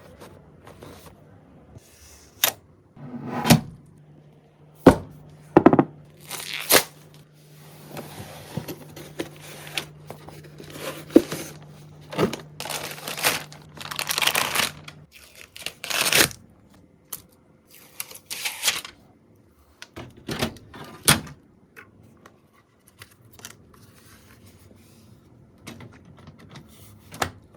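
Computer parts being handled and fitted during a PC build: a string of sharp clicks and knocks with plastic rustling and tearing between them. A low steady hum runs underneath for about ten seconds, stopping about halfway through.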